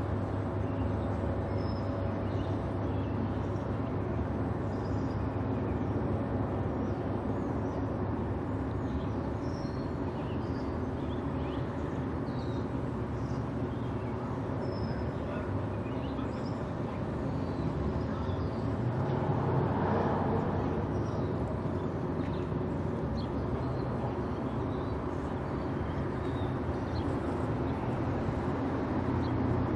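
Steady low machinery hum from a large bulk freighter passing close by, with small birds chirping over it. A short swell of noise comes about twenty seconds in.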